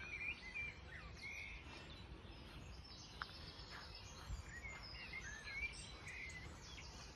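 Faint birdsong in a garden: several birds calling in short chirps and whistled phrases, over a low steady rumble of background noise.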